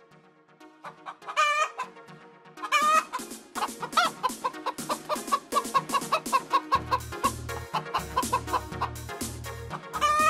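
A hen squawking twice, then clucking rapidly, over background music; a bass beat joins about seven seconds in.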